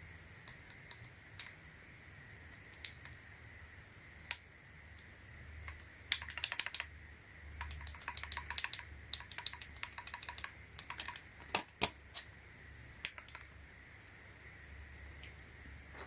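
Keys with AKKO Matcha Green switches on a hot-swap keyboard board being pressed and typed on. There are a few scattered single clicks first, then about halfway in, several quick bursts of rapid keystrokes.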